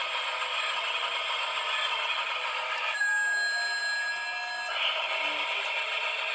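Novelty train clock's miniature train running on its track with a steady clattering whir, and a steady high tone held for under two seconds about three seconds in.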